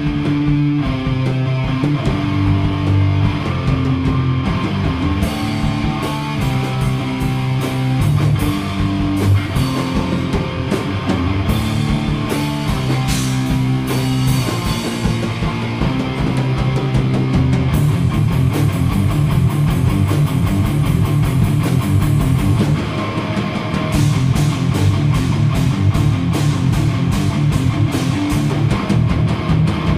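Heavy rock music: a distorted electric guitar riff over bass and a drum kit, with the cymbals growing busier about eighteen seconds in.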